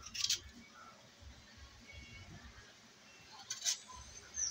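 Kitchen knife cutting and scraping the peel off green plantains: two short scraping strokes, one just after the start and one about three and a half seconds in.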